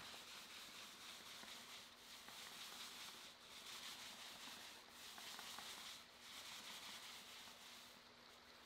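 Paint roller on an extension pole rolling sealer across a concrete floor: a faint rubbing that swells and eases with each back-and-forth stroke, about one stroke every second and a half.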